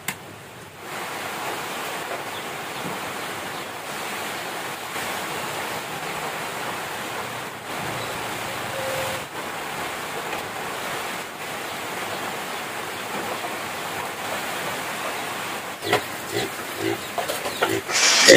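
Steady rain falling, with a short click at the start as a rice cooker's switch is pressed down. A few short farm-animal calls near the end.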